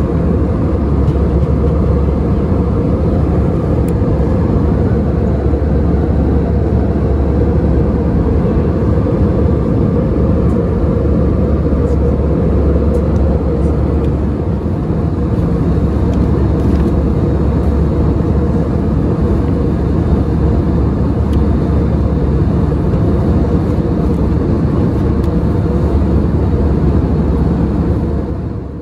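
Steady cabin noise inside an Airbus A320 in cruise: a constant low roar of the engines and the airflow over the fuselage.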